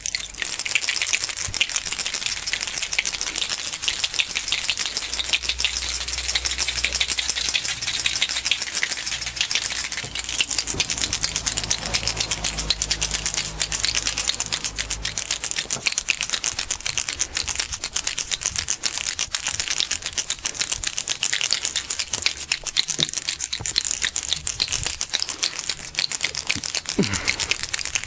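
Bottle of auto-glass primer being shaken hard and steadily, the mixing ball inside rattling fast and without pause, which mixes the primer before it is applied.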